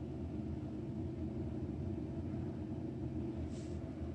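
Steady low room rumble and hum, with a brief faint hiss about three and a half seconds in.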